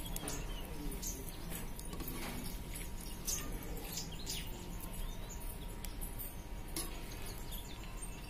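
Small birds chirping now and then, with a spatula scraping and scooping rice out of a pot in short strokes.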